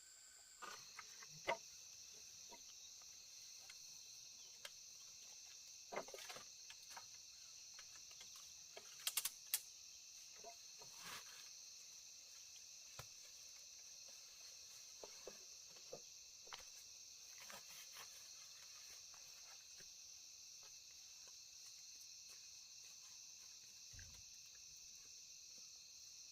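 Faint, steady high chirring of insects, a cricket-like chorus, with a few scattered soft clicks and knocks from handling things.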